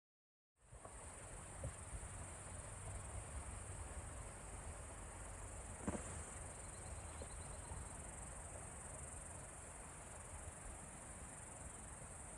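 Steady high-pitched insect buzz, unbroken and even, over a low outdoor rumble with a couple of soft knocks; it starts suddenly about half a second in.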